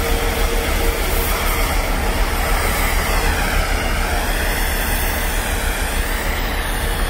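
Steady outdoor city noise: a continuous traffic hum with a heavy low rumble underneath.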